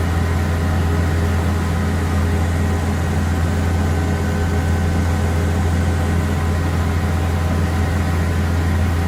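Engine of an amphibious duck tour vehicle running steadily while cruising in the water, heard on board: a deep, even hum with faint steady whining tones above it.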